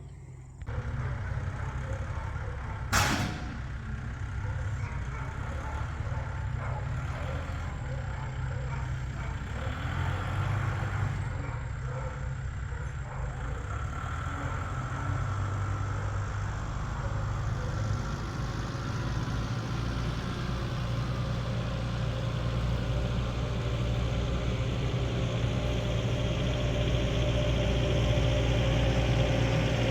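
An engine starts about half a second in and runs steadily, slowly getting louder, with one sharp knock about three seconds in.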